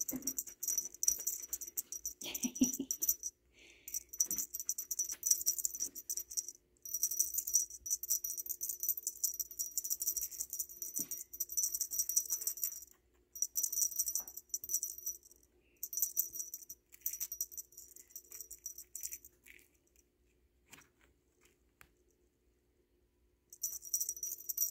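Small bell on a feather wand cat toy jingling as the wand is shaken, in bursts of a few seconds with short breaks, stopping for about three seconds near the end before jingling again.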